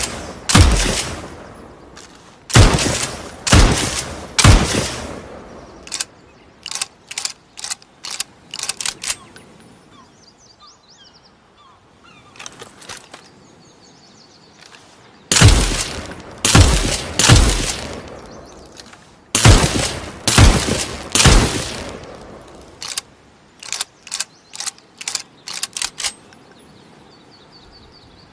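Winchester rifle firing in two volleys of several shots, each shot ringing out in a long echoing tail. Between the volleys come runs of short, sharp mechanical clicks.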